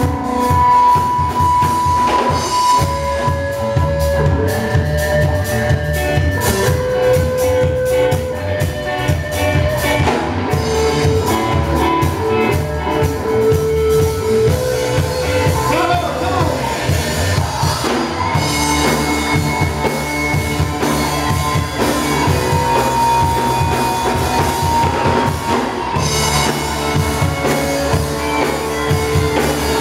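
Live rock band playing a song: a drum kit keeps a steady beat under electric guitars holding long sustained notes, with bass guitar below.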